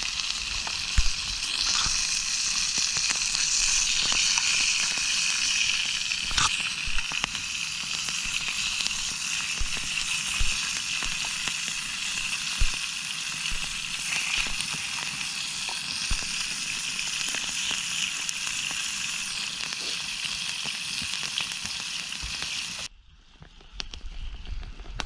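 Hot oil sizzling in a pan over a campfire as food fries, a steady hiss with scattered spitting pops. It grows louder about a second and a half in and cuts off suddenly near the end.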